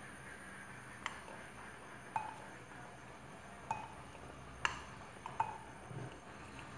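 A spoon clinking against a small glass grinder jar and a plate as chopped ingredients are spooned in, about five light clinks, some with a brief ringing tone.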